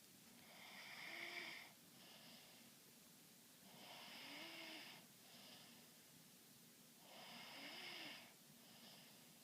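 Faint snoring: three long snores about three seconds apart, each followed by a shorter, fainter breath.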